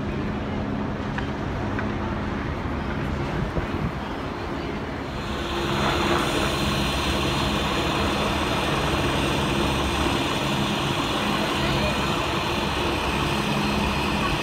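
Steady engine hum of vehicles and traffic. About five seconds in, it turns louder with a hiss on top.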